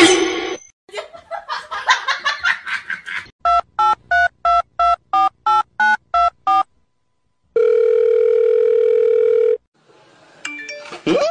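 A run of about ten short electronic phone-keypad-style beeps, about three a second, then a steady electronic phone tone held for about two seconds.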